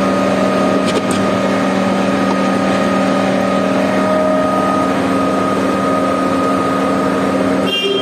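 Putzmeister 49-5 truck-mounted concrete pump running at a steady speed: a loud, even drone with a steady whine, with a couple of light clicks about a second in.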